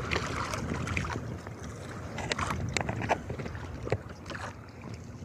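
Wind buffeting the microphone over sea around a small outrigger fishing boat, with scattered sharp knocks and clicks from handling the rod and reel.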